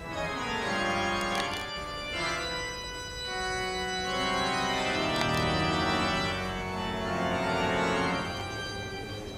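Organ music playing slow, sustained chords.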